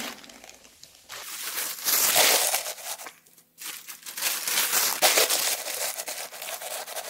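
Wet newspaper being crumpled and pushed down into an earthenware jar by gloved hands: rustling in several spells, with a brief lull about three seconds in.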